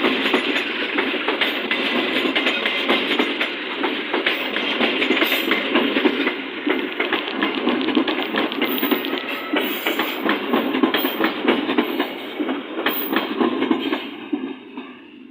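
Train rolling past, its wheels clicking rapidly over the rail joints; the sound fades away near the end.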